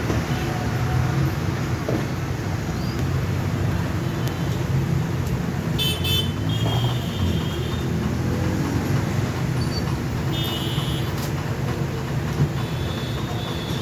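Steady low mechanical hum, with short high-pitched toots about six seconds in, again near eleven seconds and near the end.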